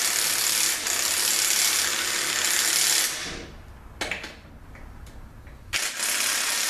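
Handheld DeWalt power driver running in two bursts, about three seconds and then nearly two seconds, spinning out the extension-housing bolts of a Ford AOD automatic transmission, with a single sharp knock between the bursts.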